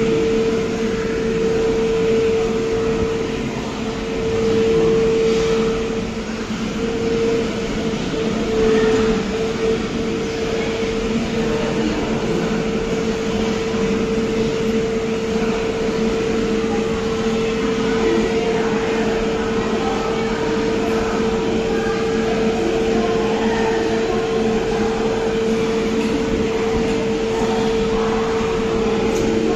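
Steady hum from an Ocean Express funicular train car at the station platform, with a constant mid-pitched tone running through it.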